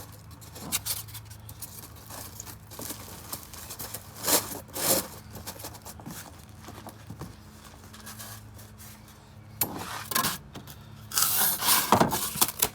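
Packing material being pressed into a cardboard shipping box, rubbing and scraping against the cardboard in a few short bursts, the loudest cluster near the end.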